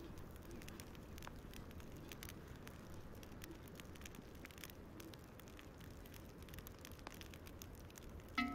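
Small campfire in a stone ring crackling faintly, with scattered light pops and snaps. Just before the end a single held note begins.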